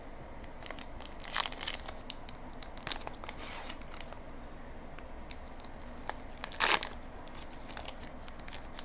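Star Wars Evolution trading card pack wrapper being torn open and crinkled by hand, in several short crackly bursts with light clicks, the loudest a little before the end.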